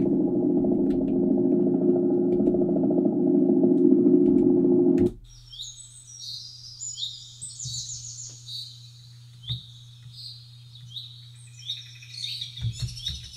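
A loud, steady, low-pitched ambient drone cuts off suddenly about five seconds in and is replaced by a looped recording of birds chirping and singing over a faint low hum.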